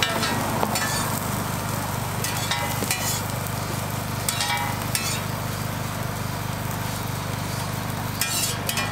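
A metal spatula scrapes and taps on a flat-top griddle as egg-wrapped toast fries with a steady sizzle. The strokes come a few at a time, with a cluster near the end, over a steady low hum.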